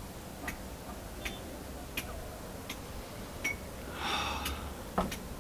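Faint, regular ticking, about one tick every three-quarters of a second, over a quiet hiss. A short breathy noise comes about four seconds in, and a soft thud just after five seconds.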